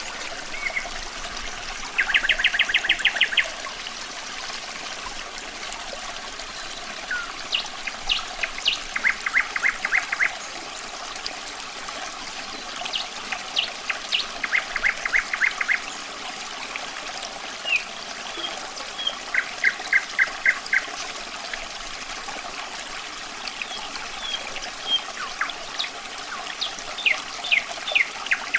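Running water trickling steadily under a nightingale singing: separate phrases of rapid repeated notes, about five of them, with short whistled notes between.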